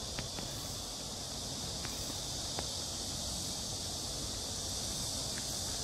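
Steady high-pitched chorus of cicadas, with a low rumble underneath and a few faint ticks.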